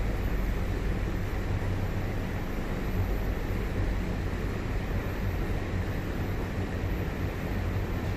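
Steady hum and rush of air inside a Chinese-made MTR Tuen Ma Line train standing at a platform with its doors open, its ventilation and onboard equipment running.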